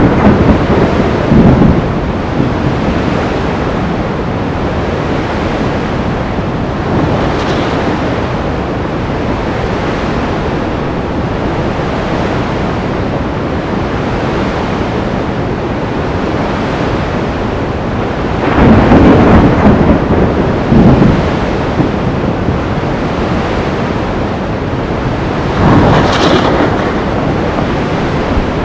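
Sea storm ambience: a steady roar of surf and wind, swelling into louder surges right at the start, about two-thirds of the way through, and again near the end.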